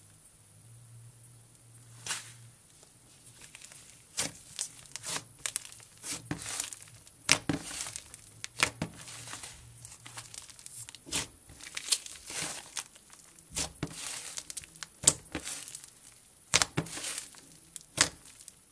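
Thick clay-based butter slime, white Daiso clay mixed into slime, being squished, stretched and torn apart by hand, giving irregular crackling, tearing pops. They are sparse at first and come thick and fast from about four seconds in.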